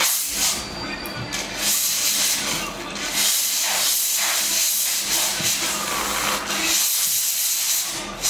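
Dental three-way air-water syringe spraying onto a tooth to rinse off acid etchant: a hiss in short spurts at first, then steady from about three seconds in, stopping just before the end.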